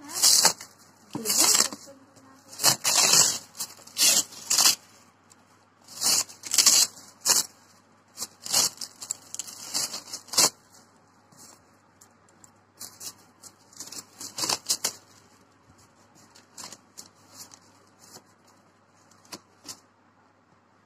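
A parcel's packaging being torn open and crinkled by hand: a string of sharp tearing and rustling sounds, loud and frequent for about the first ten seconds, then fainter and more scattered.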